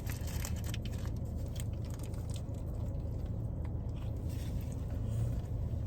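A person chewing and biting food close to the microphone, with faint irregular clicks over a steady low hum.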